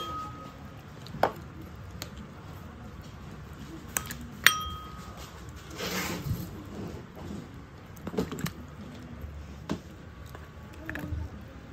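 Metal spatula clinking against a ceramic bowl as pork ribs and broth are scooped into it: several sharp clinks, one about four and a half seconds in ringing briefly.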